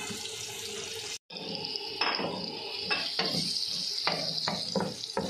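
Sliced onions sizzling in hot oil in a karahi, stirred with a wooden spatula that scrapes and knocks against the pan several times. The sound breaks off briefly about a second in, then the sizzling hiss runs on steadily.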